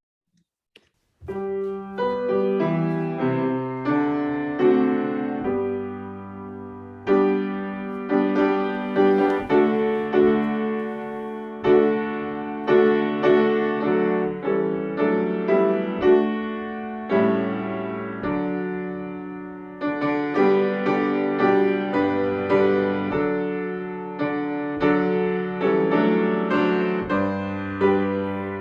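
Piano music: chords and melody notes struck one after another and left to ring and fade, starting about a second in after a brief silence.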